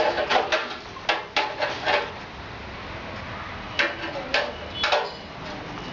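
Scattered clicks and light metal knocks from tools and metal parts being handled during work on a motorcycle's rear mudguard and wiring. Several come in the first two seconds, then three more a little before the end.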